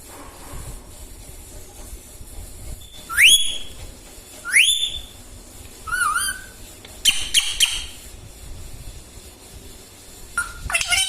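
Indian ringneck parrot giving a string of short whistle-like calls, several of them sharply rising. The first comes about three seconds in, then calls every second or so, with a last cluster near the end.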